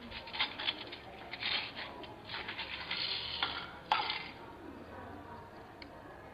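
Handling noise close to the microphone: cloth rustling with a run of small clicks and taps. There is one sharper click about four seconds in, then it settles.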